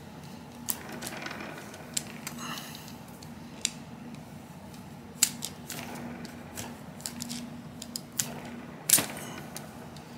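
Scattered light clicks and taps of a cleaning rod and patch being worked through the chambers of a Colt open top revolver's cylinder held in the hand, as the solvent-wet patch is pushed through each chamber. One louder knock comes near the end.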